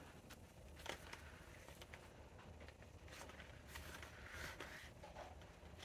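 Faint, occasional rustling of paper banknotes being handled and slid into a binder's plastic pouch, over near silence.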